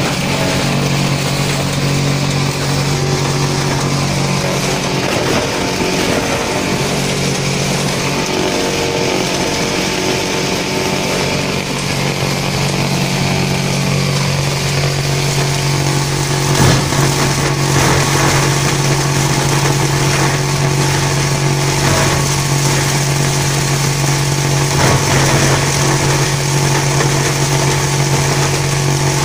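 IPR-500 shredder running and chopping big bags into strips: a loud steady motor hum with the churn of the cutting, and a couple of sharp knocks in the second half.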